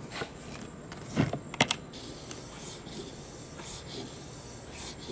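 A floor bike pump's hose connector being fitted onto the valve of a homemade PVC air cannon, with two sharp clicks about a second in. Fainter strokes of the pump follow as it is worked to pressurise the tank.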